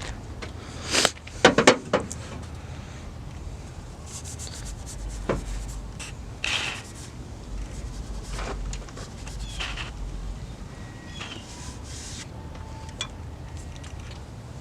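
Scattered scraping and rubbing with a few light knocks, from hand work on engine parts.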